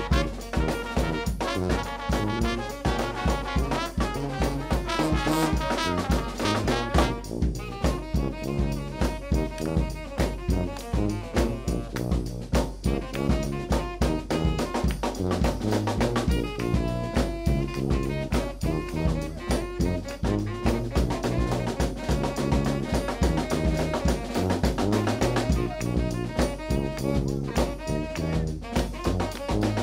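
A New Orleans brass band playing live: a sousaphone bass line and a bass and snare drum beat, with trumpet, trombone and saxophone lines over the top.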